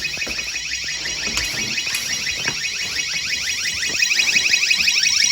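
Intruder alarm sounder giving a fast warbling tone of rapid rising sweeps, several a second, growing louder about four seconds in: the newly installed Orisec CP20 alarm panel sounding as it is first powered up.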